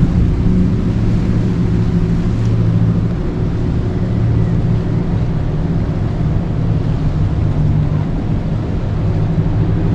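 Steady low drone of a docked cruise ship's machinery, a deep hum with several even tones that holds level throughout.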